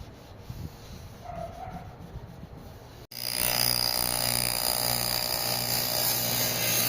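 Electric woodworking power tool running steadily with a high hiss and a low hum. It starts abruptly about three seconds in, after a few quieter knocks.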